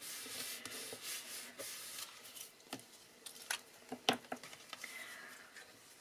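Paper and cardstock being handled by hand: a soft rustle and slide of paper, then a few sharp clicks and taps as the folded pop-up insert is pressed and opened.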